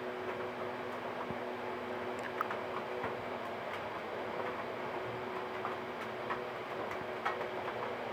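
Thick chicken and potato curry simmering in an open kadai, with scattered small pops from the bubbling gravy over a steady low hum and hiss.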